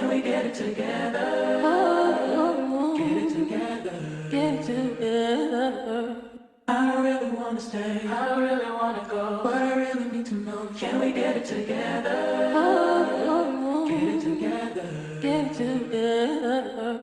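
Background music made up mostly of layered sung vocals. It breaks off briefly about six and a half seconds in.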